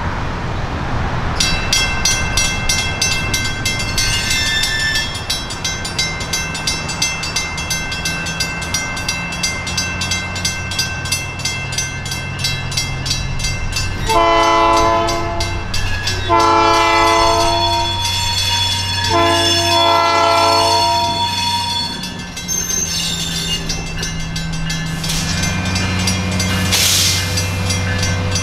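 Railroad crossing bell ringing rapidly and steadily from about a second in, over the low rumble of a diesel locomotive. Around the middle the locomotive horn sounds a series of long blasts as the train nears the crossing.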